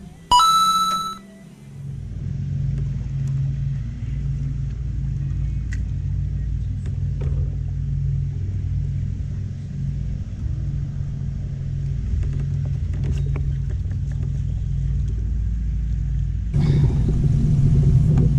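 Low, steady rumble of an Old Town PDL pedal-drive kayak being pedalled, pulsing about twice a second, picked up through the boat-mounted camera. A short electronic chime sounds about half a second in, and the rumble turns louder and fuller near the end.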